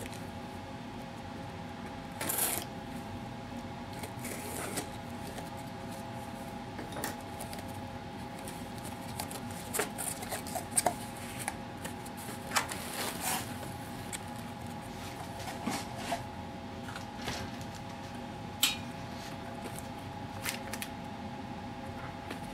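Cardboard shipping box being opened and its plastic packaging handled: scattered rustles, scrapes and sharp clicks, over a steady hum.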